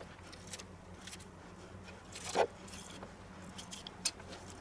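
Kitchen knife cutting and coring a green bell pepper on a wooden cutting board: light scrapes and taps, with one louder knock a little past halfway and a sharp click near the end. A faint steady low hum runs underneath.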